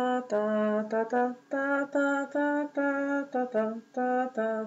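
A woman singing a short tune without words, as a string of short held notes that step up and down in pitch.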